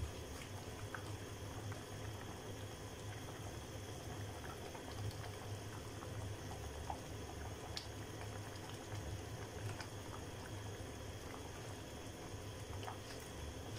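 A pot of dal (lentil stew with sausage) boiling on a gas stove: steady bubbling with small scattered pops, over a low steady hum.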